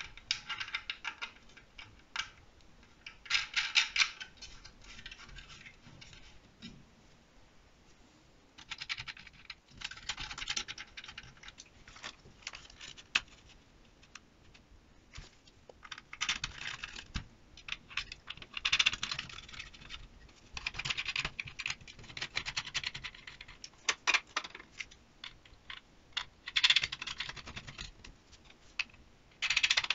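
Hard 3D-printed plastic parts of an airsoft rifle stock being handled and pressed together: bursts of scraping, rubbing and clicking plastic lasting a second or two, with quiet pauses between them.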